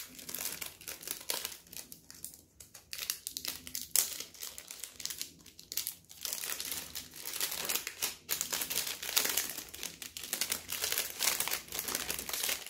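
Foil-like plastic gift wrap crinkling as a present is carefully unwrapped by hand, in a run of rustles broken by a few short pauses.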